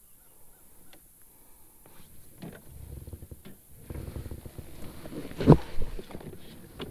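Gear-handling noise in a fishing kayak: small clicks and rustles, then a run of knocks and bumps on the hull, loudest a single thump about five and a half seconds in, as a fishing rod is picked up.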